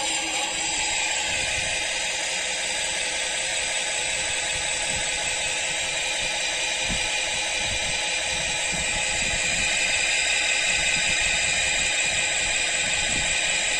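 Sound module of an RC model river boat playing a simulated engine running through its small speaker: a quick low chugging under a steady hiss, getting a little louder about nine seconds in.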